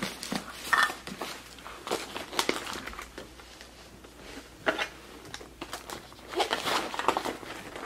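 Rustling and light knocks of a nylon camera backpack being handled, its pockets rummaged through, with scattered short rustles that come thicker near the end.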